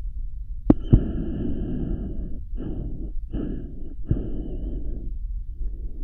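Deep, rumbling creature breaths and growls performed close to the microphone as a dinosaur's breathing, in several pulses of different lengths over a low steady hum. Two sharp clicks come just before the first long breath, about a second in.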